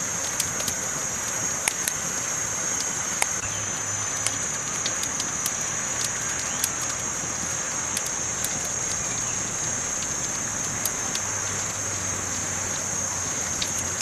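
Wood campfire crackling, with irregular sharp pops and snaps over a steady hiss.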